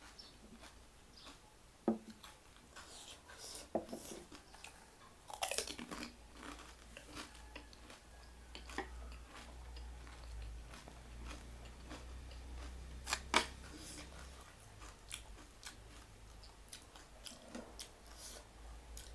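A person eating close to the microphone: irregular chewing and biting sounds, with two sharper, louder clicks, one about two seconds in and one about thirteen seconds in.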